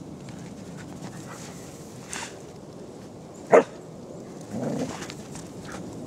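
Kelpie barking during rough play: one short, loud bark a little past halfway, then a lower, softer bark about a second later.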